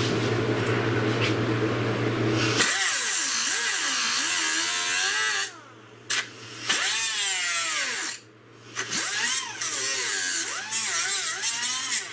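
Small handheld rotary grinding tool running, then grinding metal with its pitch wandering up and down as it bites, stopping briefly twice; it is grinding off the stuck retaining clips of a tail light's chrome trim.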